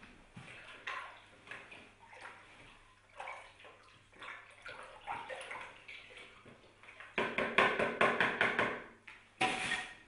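Water sloshing and splashing in a plastic bucket as dyed water is scooped out by hand, loud for a couple of seconds from about seven seconds in and again near the end. Before that, light knocks and scrapes.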